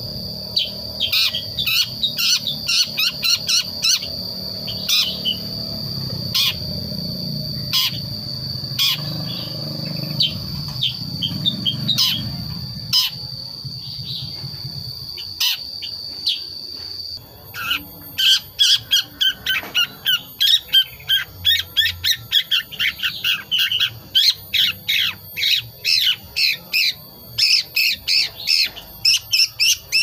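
Young long-tailed shrike (cendet), about five months old, chattering in its learning song: scratchy 'ngriwik' notes in its own natural voice, not yet imitating other birds. Scattered sharp chirps over a steady high-pitched buzz at first, then a fast run of chirps, several a second, from a little past halfway.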